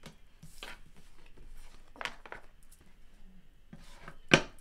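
Tarot cards being handled and shuffled, a few short rustles and slides of card stock, then a sharp knock of the deck against the table near the end, the loudest sound.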